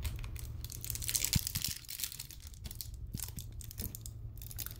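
Crinkling, rustling handling noise with scattered small clicks, densest in the first two seconds, as screws are searched for by hand.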